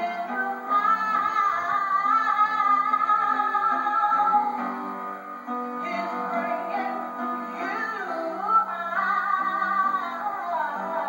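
A woman singing lead on a gospel song into a handheld microphone, her melody wavering with vibrato over instrumental backing with guitar. The sound is thin with no bass, as if played back through a television's speaker.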